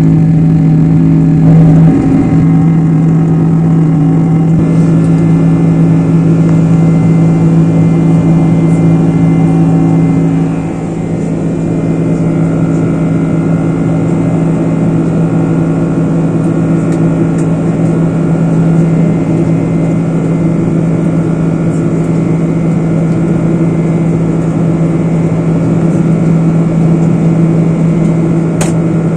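Boeing 747-400 jet engines running at takeoff power: a loud, steady drone with constant low hums. The loudness dips briefly about ten seconds in.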